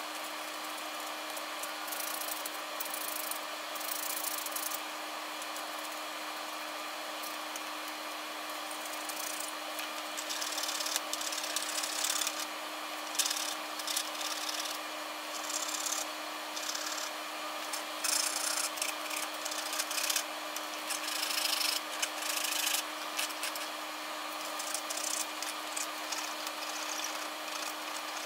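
Small cross-hatch metal file scraping back and forth on a fingerboard truck's metal hanger, rounding off its square underside, in irregular bouts of strokes that grow more frequent from about ten seconds in. A steady low hum runs underneath.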